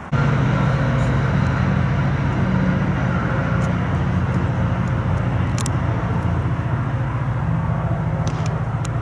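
A motor vehicle engine running steadily: a low, even drone that cuts in and out abruptly.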